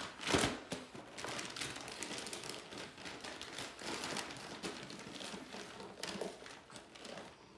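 Gift-wrapping paper crinkling and rustling in irregular handfuls as a small child grabs and handles a wrapped present, loudest about half a second in.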